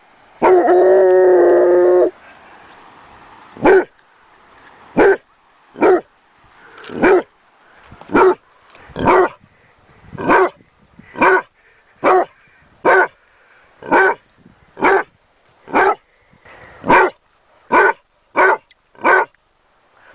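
Basset hound giving one drawn-out, howling bay, then barking over and over at about one bark a second, the barks coming a little quicker near the end.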